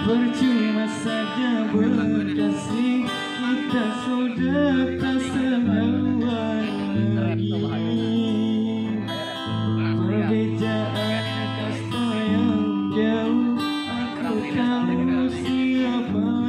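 Live acoustic guitars playing through the stage speakers: strummed chords over a moving bass line, with a wavering melody on top.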